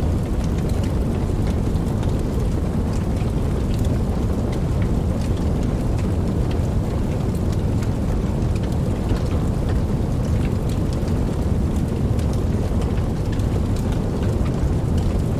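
Steady rain with scattered drop ticks over a constant low rumble.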